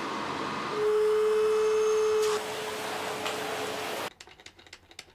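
Electric hand dryer blowing, a steady rush of air with a motor whine that sounds strongest from about one to two and a half seconds in. It cuts off abruptly near the end, leaving only a few faint small clicks.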